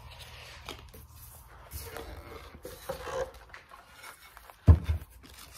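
Ebony and mahogany chair being flipped over and handled on a workbench: light wooden knocks and rustling, with one loud thump near the end as it comes down on the bench.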